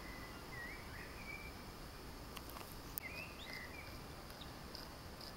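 Faint bird calls: two short runs of whistled chirping notes, one near the start and one about three seconds in, over a steady hiss. A couple of sharp clicks fall between them, the louder one about three seconds in.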